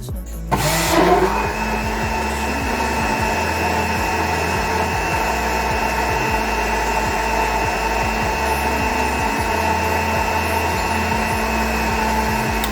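Electric kitchen blender starting up with a rising whine about half a second in, then running steadily at one speed.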